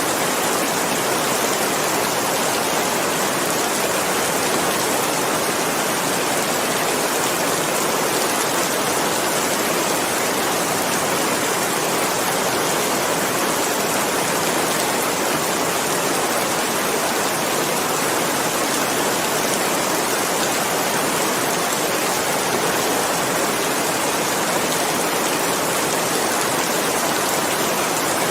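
Steady rain falling, an even unbroken hiss of water with no single drops standing out.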